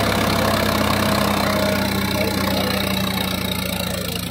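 Swaraj 963 FE 4WD tractor's diesel engine running steadily under load as the tractor pushes through sand and brush, easing off slightly near the end.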